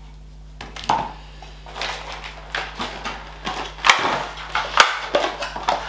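Cardboard packaging, cards and a booklet from a Pokémon trading card box being handled and set down on a table: rustling with a series of sharp knocks and taps, the loudest about four and five seconds in.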